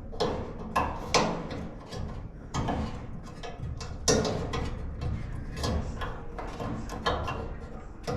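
Irregular clicks, taps and knocks of hands working with metal parts and tools, over a low steady hum.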